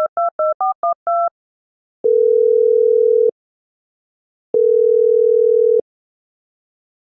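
Telephone keypad touch tones dialing a number, a quick run of beeps in the first second or so. Then the ringing tone as the call rings through: two long, low, steady tones of about a second each, with a pause of about a second between them.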